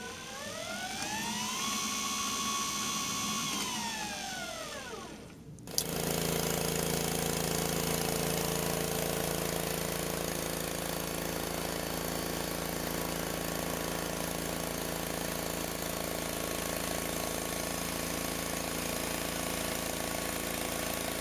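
Electric golf-caddy motor and gearbox of a homemade 12-volt bandsaw-mill power feed, run in reverse on a pulse-width-modulation speed controller: a whine rises as it speeds up, holds steady for about two seconds, then falls away as it slows to a stop. After a sharp click about six seconds in, the homemade bandsaw mill runs with a loud, steady mechanical noise and a low hum.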